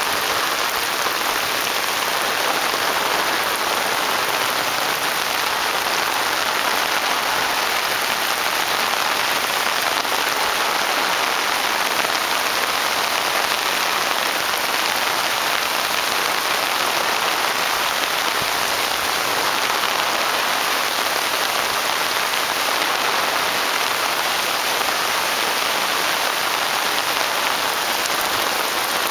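Heavy rain falling steadily onto standing water and leaves, an even, unbroken hiss.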